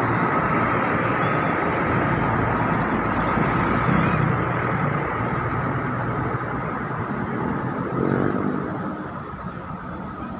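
Heavy vehicle engine labouring up a steep hill, loud and steady, then fading about eight seconds in as it moves on.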